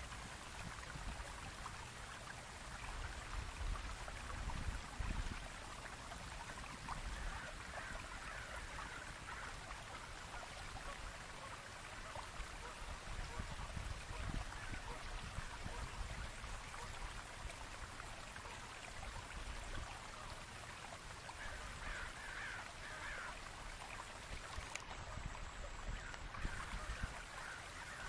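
Steady rush of running water with a low rumble underneath, and a bird calling in a few short series: about eight seconds in, around twenty-two seconds in, and again near the end.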